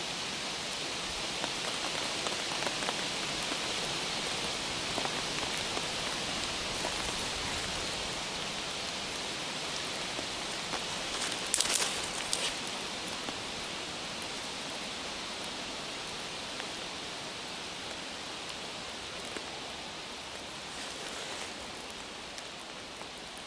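Small fire of damp twigs burning with a steady crackle and hiss, with a short cluster of sharp snaps about twelve seconds in as sticks are handled.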